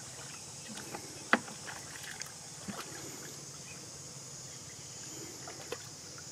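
Water sloshing and splashing as people wade through a shallow muddy pool, with one sharp knock about a second in. A steady high insect drone runs underneath.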